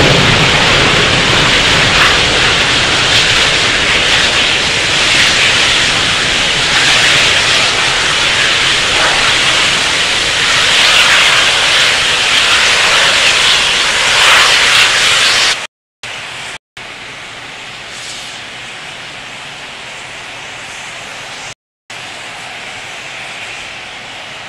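Atlas V rocket's RD-180 first-stage engine firing through lift-off and climb, a loud, dense rushing noise. About fifteen seconds in the sound cuts out twice for a moment and comes back much quieter, with another brief dropout later.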